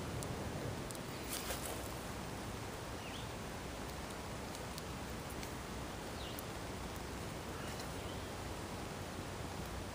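Outdoor ambience: a steady hiss with a few short, high chirps now and then, and a cluster of light clicks and rustles about a second in as a shell and stick are handled over a tin of embers.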